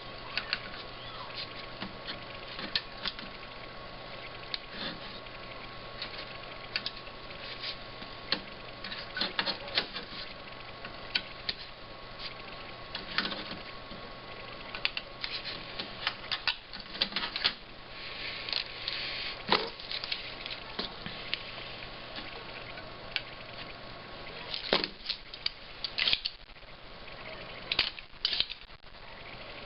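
Irregular small clicks, taps and short scrapes of hand tools working on a circuit board while electrolytic capacitors are desoldered and replaced, over a faint steady hum.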